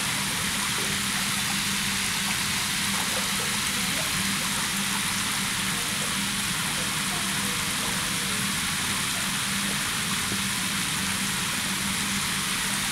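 Water gushing from the gates of a scale-model barrage and churning into the basin, a steady rushing splash with a constant low hum beneath it.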